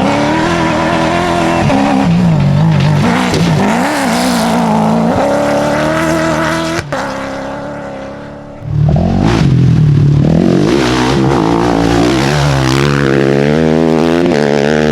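Rally-raid car engines at full throttle, revving up and down through the gears on a special stage. There is an abrupt cut about seven seconds in, then another engine pulls hard from about eight and a half seconds, its pitch climbing again and again as it shifts up.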